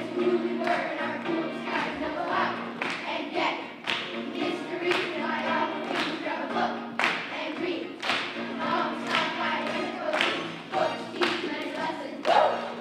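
A group of children singing together, with claps or beats at a steady pulse.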